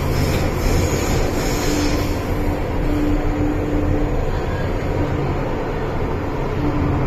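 MTR Island Line M-Train running at speed, heard from inside the carriage: a steady rumble of wheels and running gear on the track, with a held tone that fades in and out.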